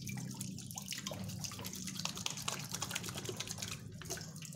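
Kencur (aromatic ginger) rhizomes being washed by hand in running water: irregular splashing and dripping.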